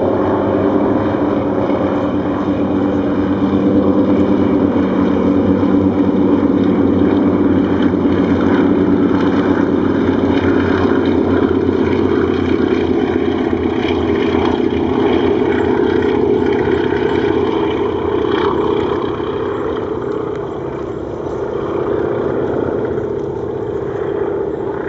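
Three Antonov An-2 biplanes in close formation, their nine-cylinder Shvetsov ASh-62 radial engines and propellers running together in a loud, steady drone. It is loudest through the middle and eases off a little near the end.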